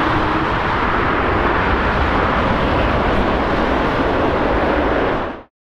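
Airbus A350-900's Rolls-Royce Trent XWB jet engines giving a steady, loud roar as the airliner rolls out along the runway just after landing. The sound cuts off abruptly near the end.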